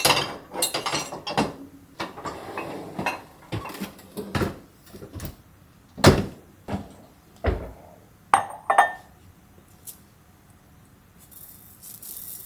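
Dishes and glassware being handled: a run of clinks and knocks, thinning out in the second half, then a brief hiss near the end.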